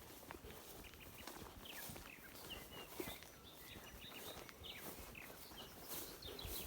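Small birds chirping, many short high calls overlapping throughout, with footsteps on the forest floor underneath, one sharper step or snap about three seconds in.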